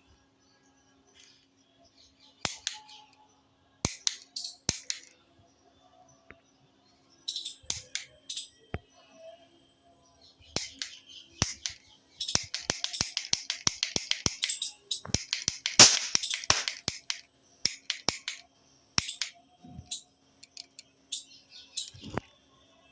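Toy roll cap gun firing paper caps: scattered sharp cracks at first, then fast runs of pops in the middle, followed by more single shots.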